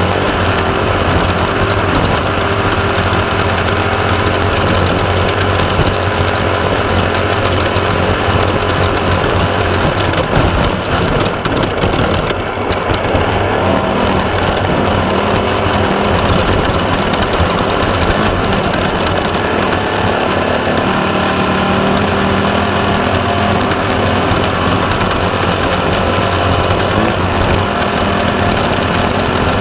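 Air-cooled VW-based 1600 cc engine of a Class 1/2-1600 desert race car running hard at speed, loud and steady with a rough rattling texture. The level dips briefly about ten seconds in and then picks up again.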